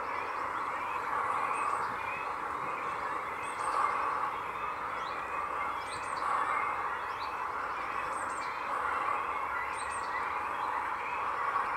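Steady outdoor background noise that swells and fades slowly, with scattered short, high bird chirps every second or two.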